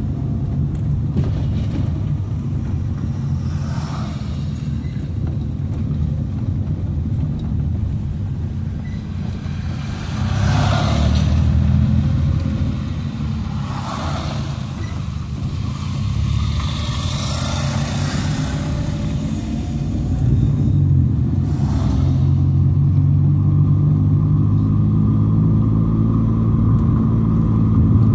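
Car engine and tyre noise heard from inside the cabin while driving, a steady low rumble. Several brief swells of rushing noise pass over it.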